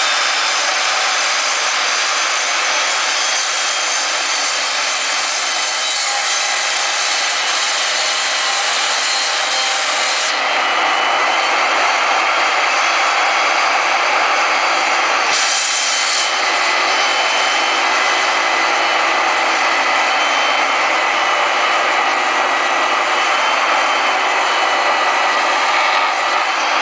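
Benchtop table saw running and ripping a long wooden board lengthwise along its edge: a loud, steady cutting noise with the motor's high whine running through it.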